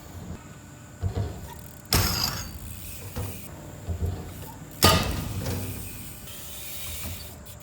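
BMX bike riding through a skatepark: a low rolling rumble of the tyres, with two sharp knocks about two seconds and five seconds in as the bike strikes the ramps and lands. The second knock is the louder.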